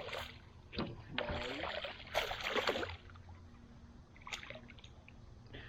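Water splashing and sloshing around a small boat, with a few short sharp knocks.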